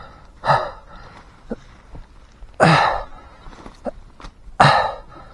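A man groaning and gasping in pain after a bike crash: three loud groans about two seconds apart, each falling in pitch, with short whimpers in between. He is winded and hurt, and he takes the injury for a broken rib.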